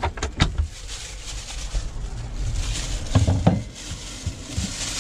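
Thin plastic produce bag holding tomatoes, rustling and crinkling as it is handled and opened, with a few soft knocks near the start and about three seconds in.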